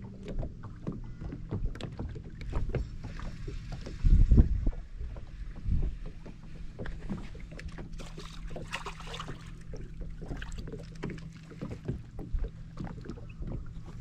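Knocks, clicks and handling noise on a small fishing boat over a steady low hum. The loudest sound is a heavy thump about four seconds in, with another near six seconds.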